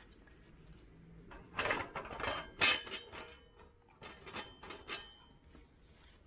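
Metal camp gear being handled: a run of sharp clinks and clatters, some with a short metallic ring, from about a second and a half in to about five seconds.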